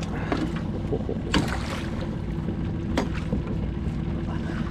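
A boat's motor running with a steady low hum, with a few sharp knocks over it.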